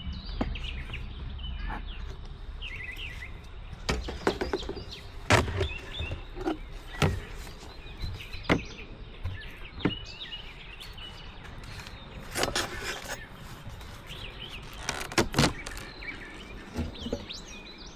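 Sharp wooden knocks and scrapes at irregular intervals as a wooden beehive is opened and its lid and honey super handled, over steady outdoor background with small birds chirping.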